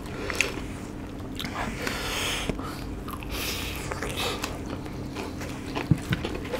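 Two people biting into and chewing fried chicken drumsticks, with irregular wet smacking and crunching. Two sharp clicks near the end.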